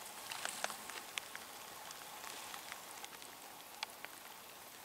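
Faint, irregular patter of drips and small ticks on calm lake water over a soft hiss.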